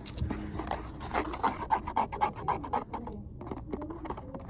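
Rustling and scratching of packaging being handled and opened by hand, a quick run of crinkles and scrapes.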